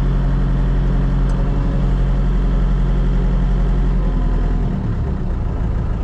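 Kubota HST tractor's diesel engine running steadily, heard from inside the cab; about four and a half seconds in its note drops and changes as the engine speed is changed.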